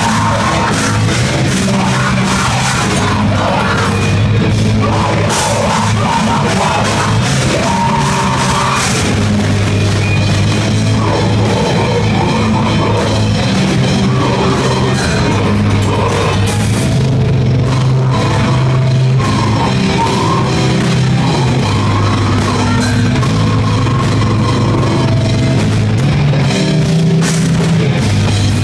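Live heavy rock band playing loud and without a break: a drum kit with frequent cymbal hits over a heavy bass guitar line.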